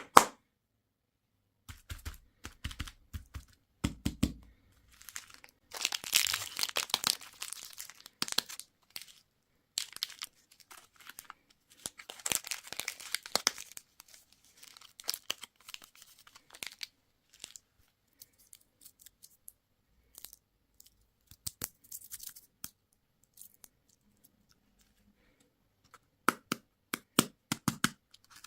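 Candy wrappers being torn open and crinkled by hand, in two longer rustling spells between scattered small clicks and taps, with a quick run of clicks near the end.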